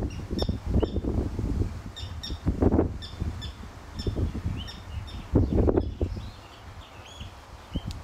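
Birds calling over and over with short, high chirps, while gusts of wind rumble on the microphone, loudest twice in the middle.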